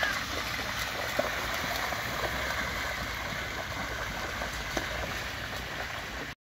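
Steady rush of floodwater over a street, with rubber boots splashing as a child wades through it. The sound cuts off suddenly near the end.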